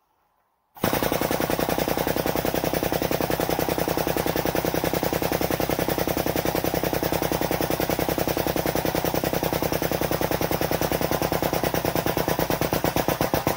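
Air-over-hydraulic pump of a shop press (air jack) starts abruptly about a second in and runs with a fast, even, loud chatter, driving the ram down to flatten a steel bracket.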